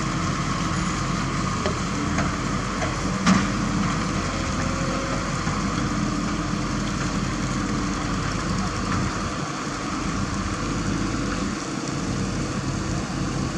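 Kobelco crawler crane's diesel engine running steadily while it holds a precast concrete girder on its hook. A short sharp knock is heard about three seconds in.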